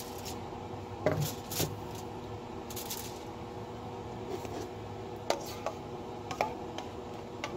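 Aluminium foil crinkling with scattered taps and crackles as a rack of smoked pork spare ribs is handled and laid on it, over a faint steady hum.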